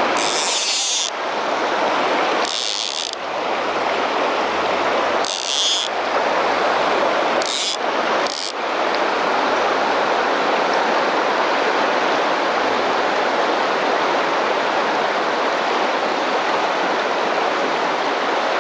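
Steady rush of a large, fast-flowing river's current, with a few short, high hissing sounds in the first eight seconds.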